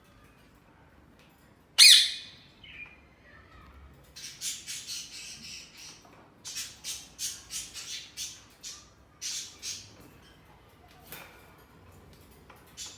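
Ringneck parrots squawking: one loud, harsh screech about two seconds in, then a run of short, shrill squawks, a few a second, for several seconds.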